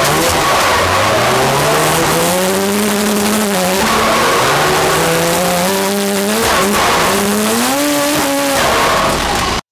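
Drift car engine revving hard in three long climbs with a short drop between each, over tyres squealing and skidding as the car slides. It is heard close up from a camera on the car's side, and the sound cuts off suddenly near the end.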